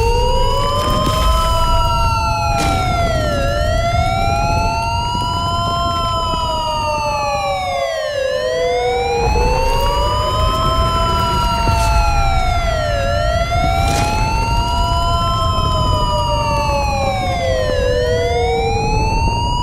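Electronic emergency siren wailing for an earthquake drill alarm: one tone rising and falling about every two and a half seconds, overlapped by a second tone that holds steady and then slides down, over a steady low rumble.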